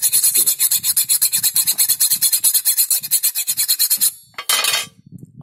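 A hand cutting tool scraped rapidly back and forth across the side of a carbon steel screw, at about ten strokes a second. It barely bites: the screw is only scratched. The strokes stop about four seconds in, and one short final burst follows.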